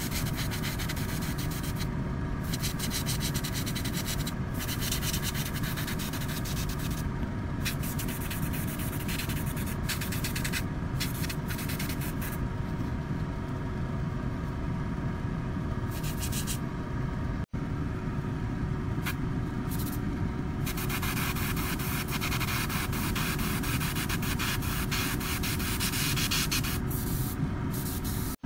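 Airbrush spraying paint, its hiss coming and going in spells with a longer, stronger spell near the end, over a steady motor hum with a constant low tone.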